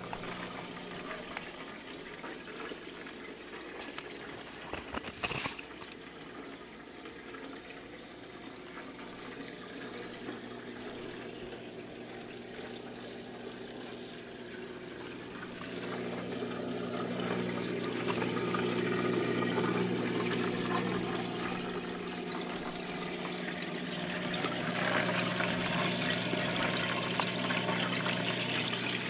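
Water pouring and splashing over the baffles of a glass aquarium sump, over the steady hum of a Quiet One 2200 return pump. There is one brief knock about five seconds in. The water gets louder about halfway through and again near the end.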